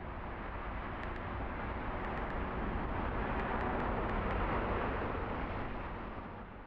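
Steady rushing ambient noise in an underpass tunnel, like traffic echoing, swelling slowly and then fading out near the end, with a few faint light ticks.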